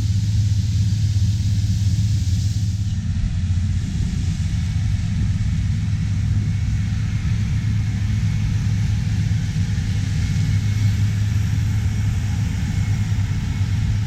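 Heavy harvest machinery running steadily, a low, even engine rumble with a faint high whine above it.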